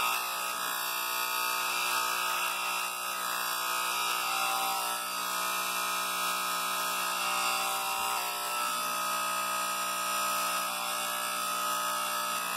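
Corded electric hair clippers buzzing steadily as they are run over a closely shaved scalp.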